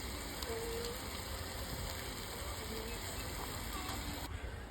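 Faint, indistinct voices over a steady background hiss, with the background changing abruptly near the end.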